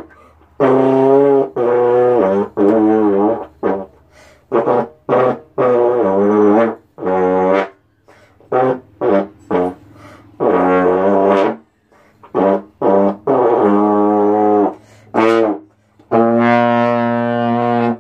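Slide trombone played solo: a string of notes, some short and separated, some held for a second or more, with the pitch wavering and sliding between notes in places. It ends on a long held note that stops abruptly.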